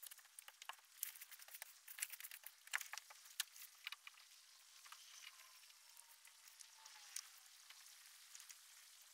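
Faint, irregular clicks and crackles, dense for the first few seconds and then thinning out, with a faint tone gliding downward in pitch past the middle.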